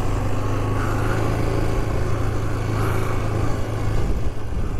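2008 Yamaha Grizzly 450 ATV's single-cylinder four-stroke engine running steadily with an even, low hum.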